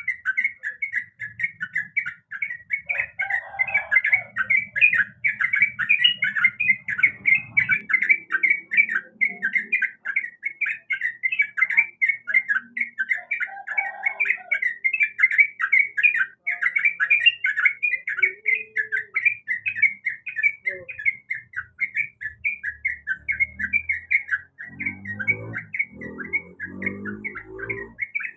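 Yellow-vented bulbul (trucukan) singing without pause: a fast, unbroken run of short chirping notes, several each second. Some lower sounds join underneath near the end.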